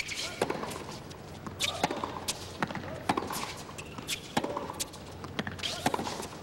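Tennis rally on a hard court: a string of sharp pops from racquets striking the ball and the ball bouncing, going back and forth at an irregular pace.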